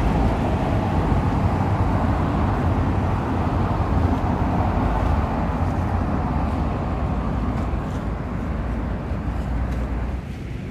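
Steady low rumble of road traffic, a vehicle's engine and tyres passing on the road, which drops off noticeably near the end.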